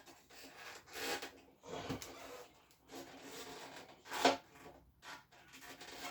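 Irregular rubbing and scraping as the ignition key switch and its wiring are worked by hand into the powder-coated frame of a Honda ST50, with one louder scrape about four seconds in.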